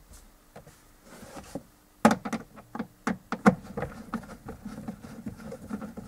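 Screwdriver working out the screws of a plastic lower dash trim panel. Irregular clicks and light knocks of tool on screw and plastic come thick and fast from about two seconds in.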